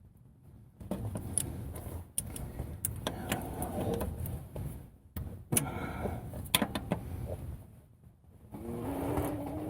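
Clicks, knocks and scraping of hands and body working under a van at an oil filter, with a short strained vocal sound near the end.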